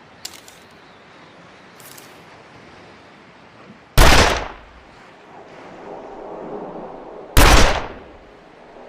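Smith & Wesson Model 27 .357 Magnum revolver fired twice, about three and a half seconds apart, each shot a sharp crack with a short fading tail. Two light clicks come first, near the start.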